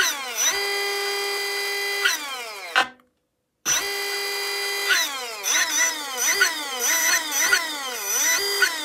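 Castle 2028 800kV sensored brushless motor spinning free on its Mamba Monster X 8S ESC with no pinion fitted, making a whine. It is run up, held at a steady pitch, and left to coast down with a falling whine. The sound cuts out briefly about three seconds in, then the motor is run up and held again, followed by a string of quick throttle blips.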